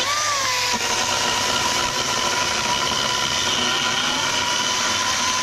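Echo DCS-2500T 56-volt battery chainsaw with a 12-inch bar running at full speed, its chain cutting through a 4x6 wooden post: a steady motor whine with a brief rise and dip in pitch right at the start.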